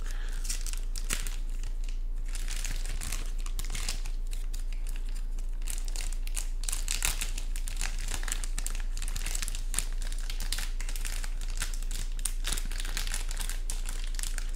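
Clear plastic packaging bag crinkling and rustling without pause as hands handle a heavy metal water block inside it and work it out of the bag.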